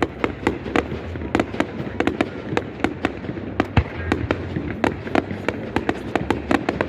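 Fireworks display with rapid, irregular bangs and crackles, several a second, over a continuous rumble of echoing detonations.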